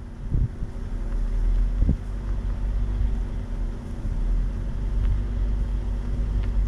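Low, steady rumble of a slowly moving Buick car, with wind buffeting the microphone and two soft thumps in the first two seconds.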